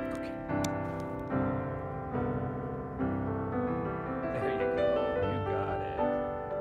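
Background piano music, notes struck at a slow, even pace.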